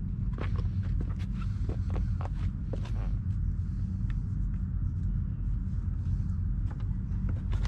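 Low, steady engine drone with a few sharp clicks and taps over it, most of them in the first half.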